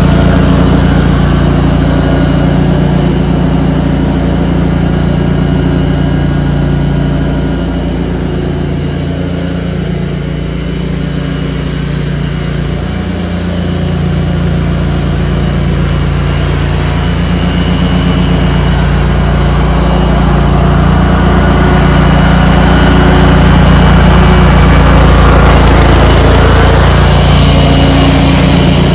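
Cub Cadet 106 garden tractor's Kohler single-cylinder engine running steadily, easing off a little in level from about eight to fourteen seconds in before coming back up.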